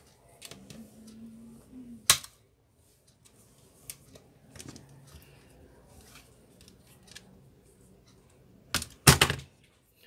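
Plastic clips of a Lenovo Tab A5500-HV's back cover clicking and snapping as a plastic opening tool pries it off. There is one sharp snap about two seconds in and a louder run of snaps near the end as the cover comes free.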